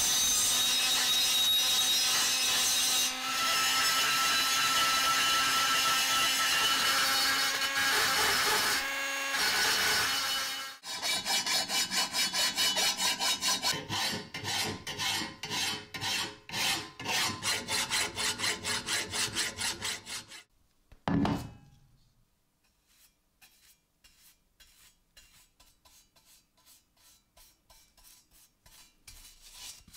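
A rotary tool with a small ball burr grinds steadily into cast-iron lettering, stopping about ten seconds in. Then a hand file rasps across the cast-iron bracket in even strokes, about two a second. A single low thump follows, then faint, regular strokes of a paintbrush.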